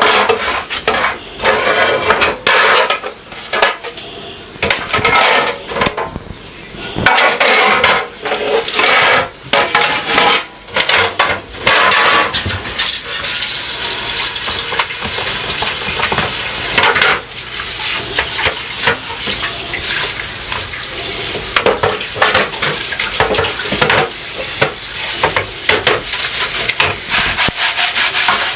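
Refrigerator shelves and drawers knocking and clattering in a kitchen sink as they are handled and washed. From about twelve seconds in a tap runs steadily under the clatter.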